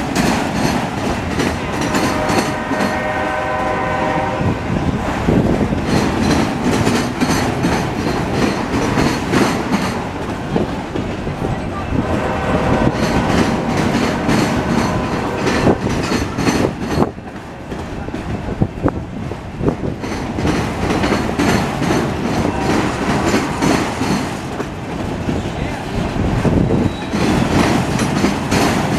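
CSX auto rack freight train rolling past, its wheels clacking in a steady repeating rhythm over the rail joints. About two to four seconds in, a brief chord of several steady tones sounds over the rumble.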